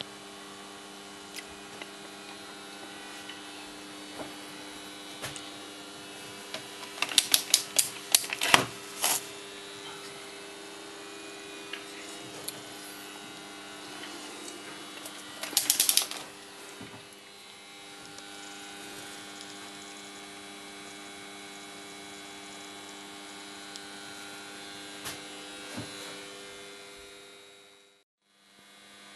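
Steady electrical hum of a homebuilt Kanthal-wire electric furnace running, broken by two clusters of sharp clicks and clinks, about seven seconds in and again about fifteen seconds in. The hum fades out near the end.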